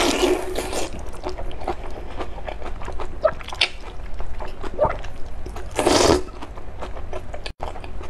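A person slurping wide liangpi noodles in sesame sauce, then wet chewing and lip smacks. The slurp ends about a second in, and a second long slurp comes about six seconds in.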